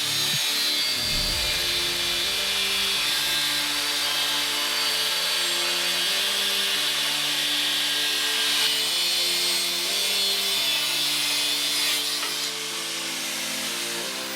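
A power tool cutting 3 mm steel plate, a steady harsh rasping hiss that eases near the end, under background music.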